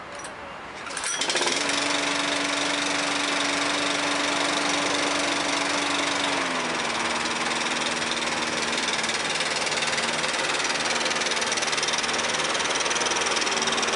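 Mountfield SP454 petrol lawn mower's engine starting about a second in and then running steadily; its pitch drops slightly about six and a half seconds in.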